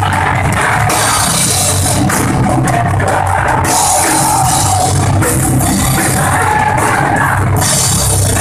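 A heavy rock band playing live and loud: distorted electric guitars and a drum kit, with cymbal crashes coming and going.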